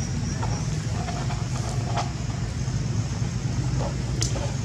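Steady low hum of an engine running, with a few faint short chirps over it.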